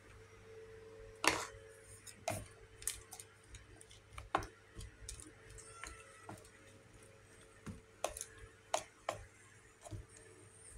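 Kitchenware being handled: scattered sharp clicks and knocks of a pan, lid and bowl, about a dozen light taps with the loudest about a second in, over a faint steady hum.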